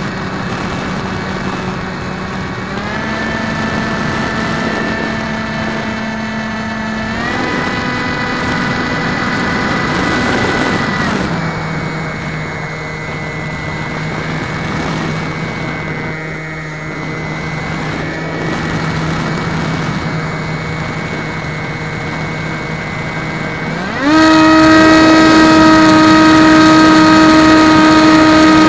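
Electric motor and propeller of a Floater Jet RC foam plane whining in flight, heard from on board with air rushing past. The pitch steps up about three and seven seconds in and drops about eleven seconds in, then about four seconds before the end it jumps sharply higher and much louder as the throttle is opened up.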